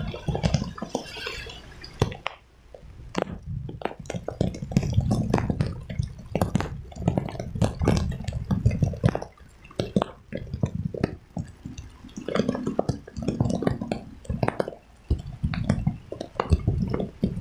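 Heavy rain on a phone filming from a moving motorbike: raindrops striking the phone near its microphone make irregular, sharp taps, some in quick clusters, over a low rumble.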